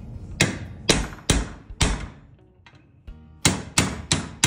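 Hammer driving a chisel to shear the rivets off a steel seat pedestal: sharp metal-on-metal blows, four in the first two seconds, a short pause, then four more in quick succession near the end.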